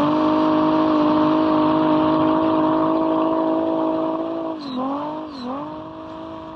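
Mercedes OM606 straight-six turbo-diesel revved up and held steady at high revs for about four seconds, then two quick dips in revs and a drop-off near the end. Its custom-ground injection pump lets this diesel rev to around 7000 rpm.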